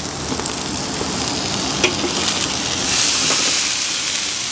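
Marinated turkey breast sizzling on the hot grate of a Weber Q 2400 electric grill, just flipped onto its unseared side. A light click comes a little under two seconds in, and the sizzle grows brighter and hissier about three seconds in.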